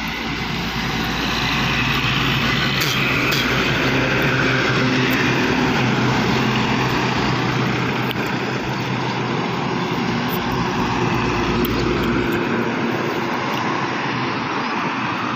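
Steady drone of heavy diesel traffic: trucks passing on the highway and a passenger train going by. The deepest rumble cuts off suddenly about twelve seconds in.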